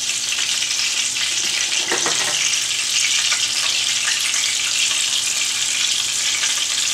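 Corn-tortilla-wrapped sausage frying in peanut oil: a steady sizzle, with a faint knock about two seconds in.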